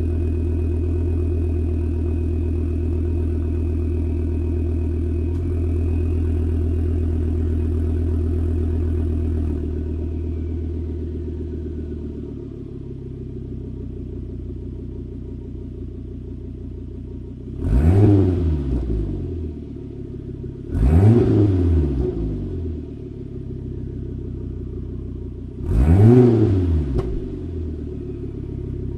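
Volvo S60R's turbocharged 2.5-litre inline five running through a catless exhaust, idling high at first, then settling to a lower, quieter idle about ten seconds in, typical of an engine coming off its cold-start fast idle. Later the throttle is blipped three times, each a short rev that rises and falls back to idle.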